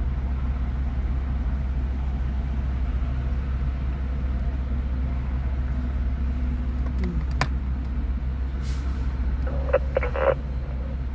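Freeway traffic going by: a steady low rumble of passing engines and tyres, with a truck pulling a trailer passing near the end.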